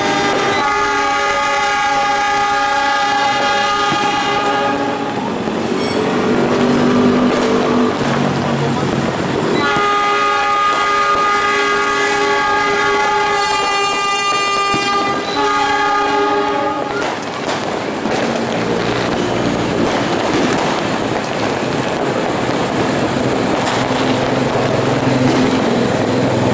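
Locomotive air horns sounding long held blasts, each a chord of several tones. There is one blast of about five seconds near the start and a second of about seven seconds later, which changes pitch partway through. Lower, fainter horns sound in between and toward the end over steady train noise.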